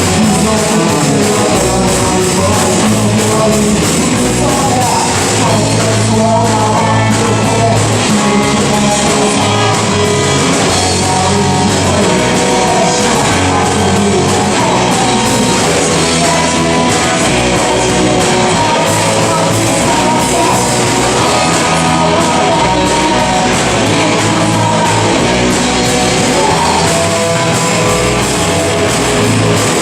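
Live rock band playing loudly: electric guitars and drums driving a rock-and-roll song, with a singer's vocals over the top.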